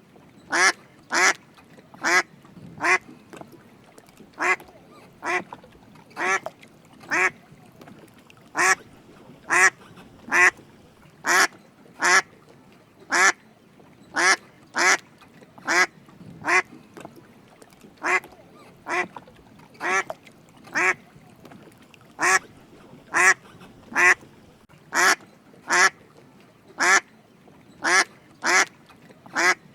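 Drake mallard quacking: short calls repeated about once a second, now and then two close together.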